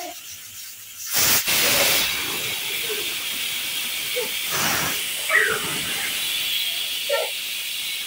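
Stovetop pressure cooker whistle going off: a sudden loud burst of escaping steam about a second in, settling into a steady hiss as steam vents from the weight valve.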